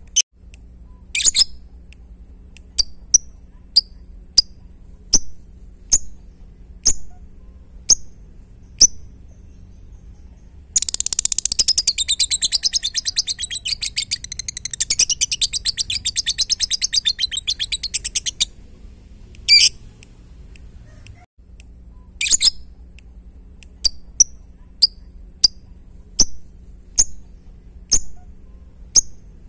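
Lovebird giving short sharp chirps about once a second, then breaking into a fast, rapid-fire chatter for about seven seconds, the 'ngetik' (typing) call, before going back to single chirps.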